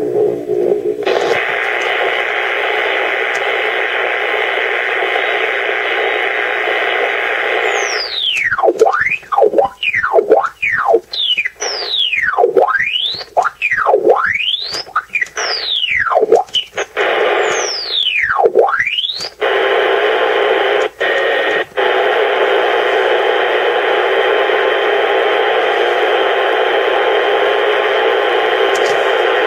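Shortwave receiver in SSB mode giving steady static hiss. For about ten seconds in the middle the hiss gives way to a run of steep whistles that swoop down and back up, one after another, before the hiss returns.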